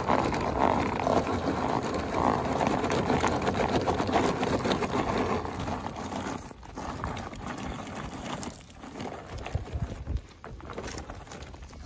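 RC scale crawler truck grinding over loose gravel and rock, its tyres crunching and scattering the stones in a dense clatter. The clatter is heaviest in the first half, then thins out with short pauses as the truck eases along.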